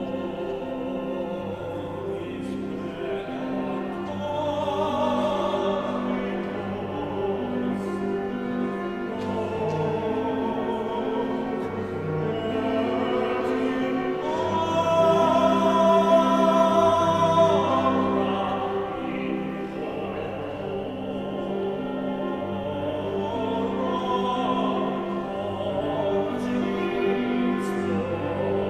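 Sacred vocal music: a singer with wide vibrato over an instrumental accompaniment with a low bass line. It swells to its loudest around the middle, where the voice holds high notes.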